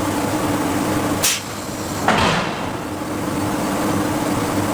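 Industrial hydraulic forging hammer working steel: a steady low hum with two sharp blows, the first a little over a second in and the second just after two seconds.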